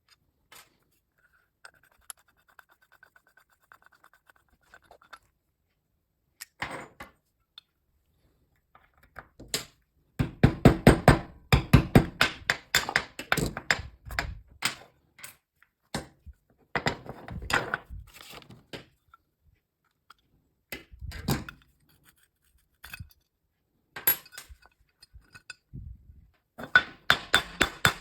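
Metal-on-metal work on an old manual hand drill: bursts of rapid sharp clicks and taps with a few single knocks, starting with faint quick ticking.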